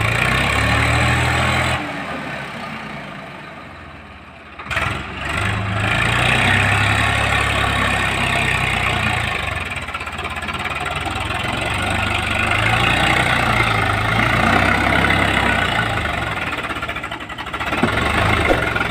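Swaraj 744 XT tractor's three-cylinder diesel engine running under load while driving through loose sand. About two seconds in it fades for a couple of seconds, then comes back abruptly just before five seconds in and keeps running steadily.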